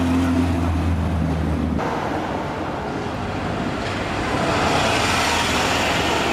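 Vintage car engine running steadily with a low hum as the car drives close by, cutting off suddenly just under two seconds in. Then general street traffic noise that swells from about four seconds in as more classic cars approach.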